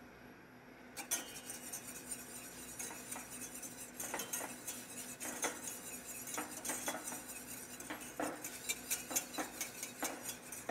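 Wire whisk clinking and scraping against a stainless-steel saucepan as a sauce thickened with roux is whisked. The clinks are quick and irregular and start about a second in.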